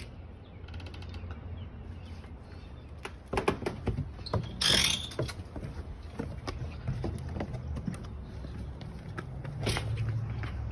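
Footsteps and scattered knocks on a wooden porch and its steps, over a low steady rumble, with a short louder rasp about halfway through.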